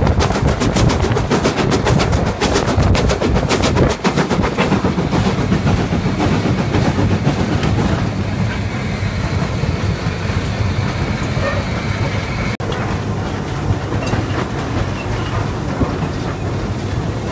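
LNER B12 4-6-0 steam locomotive heard from its footplate, running with rapid exhaust beats. The beats die away after about five seconds, leaving the steady rumble and rattle of the cab and the wheels on the rails.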